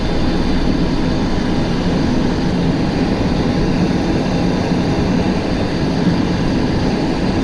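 Cessna Citation XLS in flight during climb-out, heard from inside the cockpit: the steady noise of its twin turbofan engines and the airflow, with a low hum underneath.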